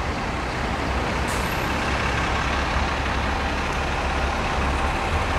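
Heavy road traffic passing close by: a steady low rumble of trucks and buses, with a short high hiss about a second in.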